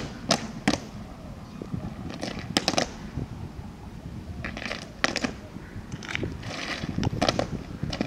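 Boots of a squad of drill cadets stamping on asphalt in a few sharp clusters of hits as they march, halt and stand to attention.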